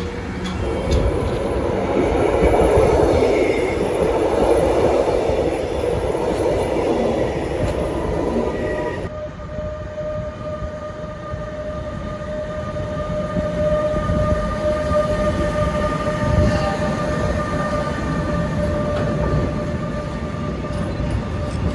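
A train running past on the line. About nine seconds in the sound changes abruptly, and a steady whine of several held tones then sounds over the rolling noise.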